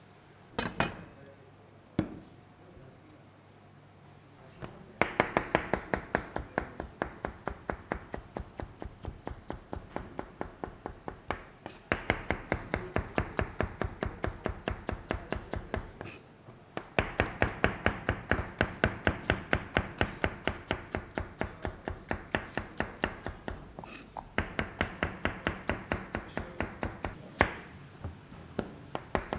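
Knife chopping fast and rhythmically on a cutting board, at about four strokes a second. It comes in runs of several seconds with short pauses between them, after two single knocks at the start.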